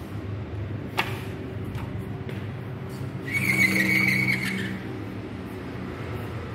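Steady hum of city street traffic coming in through the open balcony. There is a sharp click about a second in, and about three seconds in a louder squeal lasts over a second.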